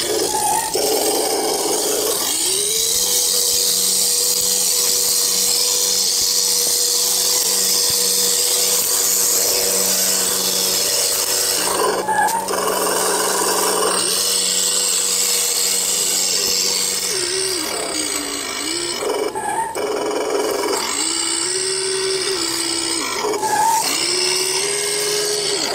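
Electric drive motor and gearbox of an HG P402 RC crawler truck whining. The whine rises about two seconds in and holds steady for a long stretch, then falls and climbs again several times with the throttle.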